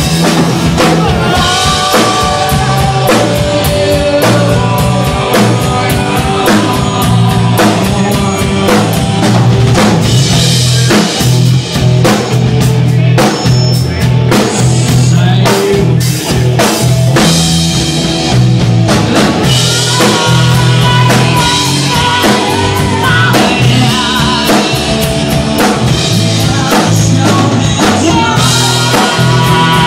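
Rock band music: a drum kit beating under bass and electric guitar, with a singing voice over it.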